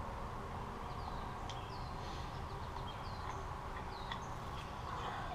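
Small birds chirping and calling, short high notes scattered throughout, over a steady low background rumble.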